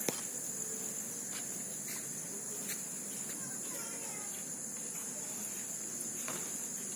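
Steady high-pitched insect chorus with a few faint clicks.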